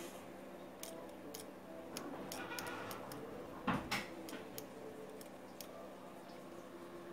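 Multimeter probe tips clicking against a component's metal terminals on a circuit board: about a dozen light, irregular ticks, with one louder knock a little past halfway.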